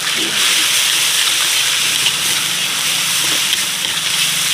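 Ground garlic-and-spice paste sizzling in hot oil in a steel wok while being stirred with a metal spatula: a steady, loud frying hiss.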